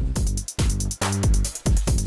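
Background music with a steady dance beat, about two beats a second, over a repeating bass line.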